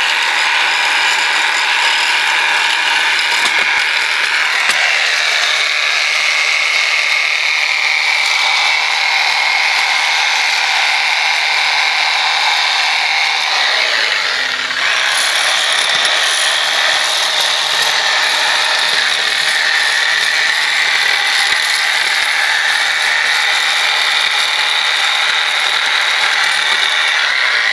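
Handheld power scraper with a flat blade running steadily and rattling as it scrapes barnacles off a boat's sterndrive. It dips briefly about halfway through.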